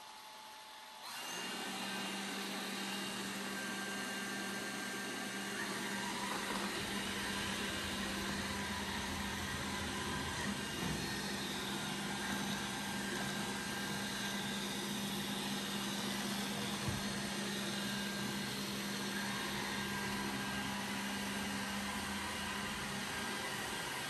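Dreame F9 robot vacuum cleaner running: a steady whir of its suction fan with a low hum, which comes up sharply about a second in.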